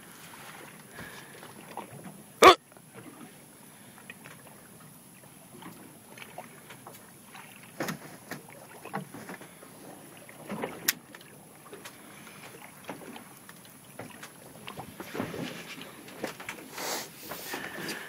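Faint wash of water and wind around a small fishing boat drifting at sea, with scattered small knocks and clicks of handling gear and one sharp, loud knock about two and a half seconds in.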